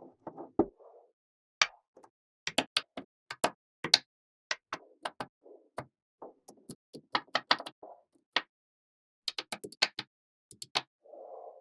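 Small magnetic balls clicking and snapping together in quick, irregular clicks as they are placed, with soft rustling and sliding between the clicks.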